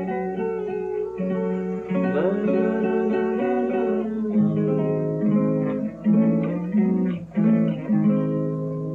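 Classical guitar played fingerstyle: a melody of plucked notes over chords, with a slide up between notes about two seconds in.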